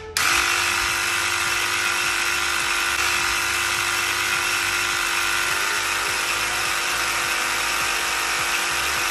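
Graco TrueCoat 360 handheld airless paint sprayer's electric pump running with a steady hum in prime mode, pumping water through the pump and gun to flush out paint. It starts up about a quarter second in.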